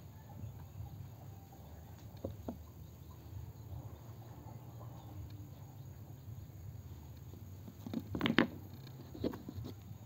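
Handling noise from a hand holding and turning a stone against a low steady background noise: a few faint knocks, then a louder cluster of knocks and rustles about eight seconds in, and one more a second later.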